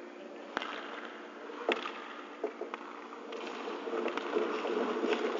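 Ice hockey skate blades scraping and carving the ice, the strides growing louder toward the end. A few sharp clacks on the ice break in, the loudest a little under two seconds in.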